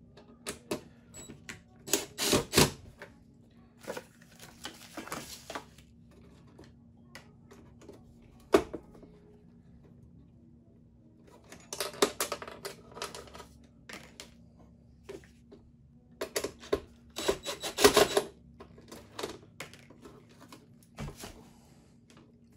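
Irregular clicking and rattling of electrical wires and crimp connectors being handled and bundled against a metal panel, in bursts, with one sharper knock about a third of the way in, over a faint steady hum.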